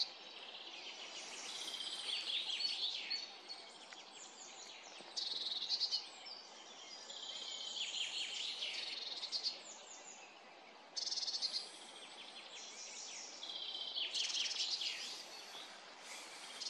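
Several songbirds singing in a forest, their songs overlapping, with one loud song repeating about every six seconds.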